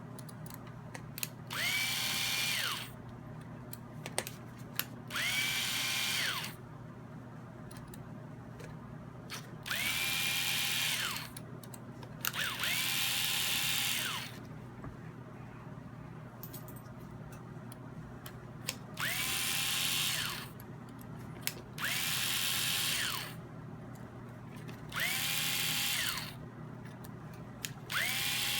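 Small cordless electric screwdriver backing out cap screws in short runs, about eight times, each spinning up, running a second or so and winding down, with light clicks of screws and tool handling in between.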